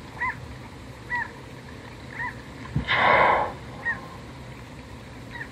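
A whale breathing out at the surface: one loud, short blow about three seconds in, lasting about half a second. A bird gives four short calls, about one a second.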